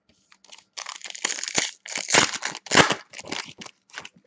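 Plastic-foil wrapper of a hockey trading card pack being torn open and crinkled as the cards are pulled out. The crackling starts about a second in and is loudest past the middle.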